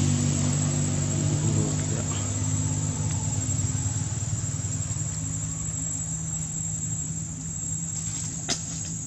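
An engine running steadily with a low hum that slowly fades, and one short click near the end.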